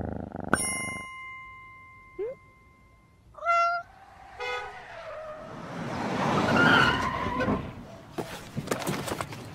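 A bright notification chime rings out and fades, then a short rising squeak and two meows from a cat. A swelling rush of noise follows, loudest about seven seconds in, then a few clicks.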